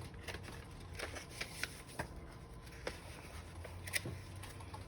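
Paper rustling and crinkling as the pages of a decorated notebook and its tucked-in cards are turned and handled, with scattered light clicks and one sharper crackle about four seconds in.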